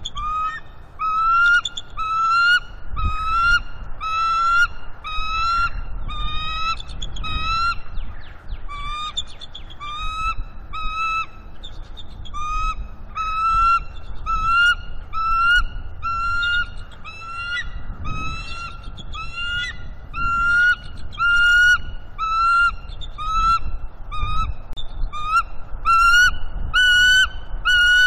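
A mated pair of bald eagles calling to each other in a long run of high, chirping notes, about three every two seconds, getting louder and a little higher near the end. These are the pair's greeting calls after the female returns to the nest.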